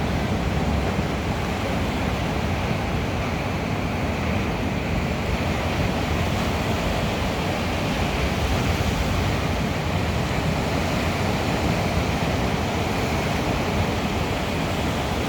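Sea waves washing in on a beach, a steady rush of surf.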